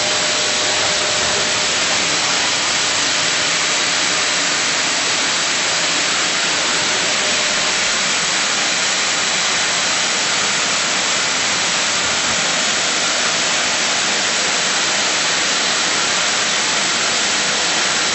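Vacuum cleaner running with a steady, even hiss.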